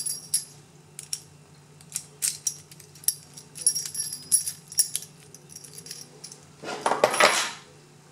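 A ring of brass keys jangling and metal lock cylinders clinking as they are handled. Near the end, a louder rattle of metal locks shifting in a plastic organiser box.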